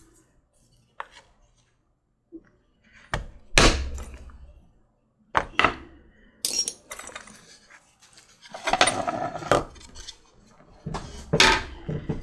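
Sharp mallet blows on a metal hole punch driving it through layers of leather, struck several seconds apart, with some clinking of metal tools being handled in between.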